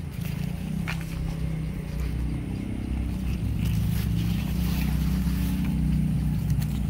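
A motor engine running steadily at a low pitch, growing a little louder about halfway through, with a few brief clicks and rustles over it.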